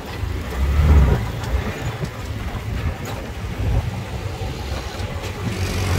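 Uneven low rumble of a tuk tuk (auto-rickshaw) riding through city traffic, loudest about a second in.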